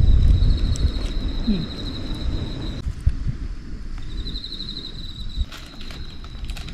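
Insects trilling in a steady, high-pitched pulsing buzz that breaks off about three seconds in and comes back a second and a half later, over low wind rumble on the microphone.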